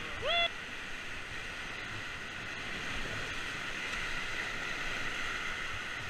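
Whitewater rapids rushing steadily around an inflatable raft. A short rising shout from one of the rafters is heard near the start.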